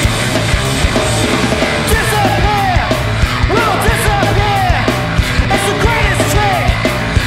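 Noise-rock band playing loud: drums and heavy guitars. From about two seconds in, a pitched line keeps sliding up and down over them.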